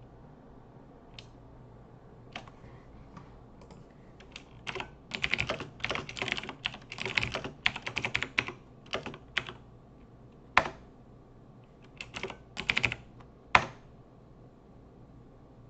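Typing on a computer keyboard: a few scattered keystrokes, then a fast run of typing, then a handful of separate presses with two louder single strokes near the end.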